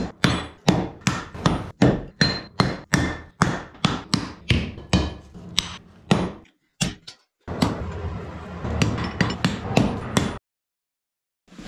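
Blacksmith's hand hammer striking a red-hot bloomery iron bar on an anvil in steady, evenly spaced blows, about two to three a second. After a short break, a second run of blows comes over a continuous background noise and cuts off suddenly about ten seconds in.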